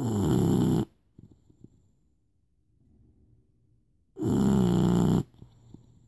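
Loud snoring: two long snores about four seconds apart, each lasting about a second and falling in pitch, with faint breathing noises between them.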